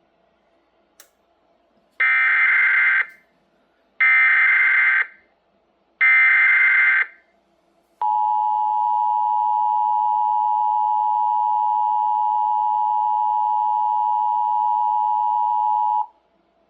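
Emergency Alert System (SAME) alert opening on a NOAA weather radio: three one-second bursts of digital header tones, two seconds apart, then the steady two-tone attention signal held for eight seconds. It announces an incoming warning, here a special marine warning.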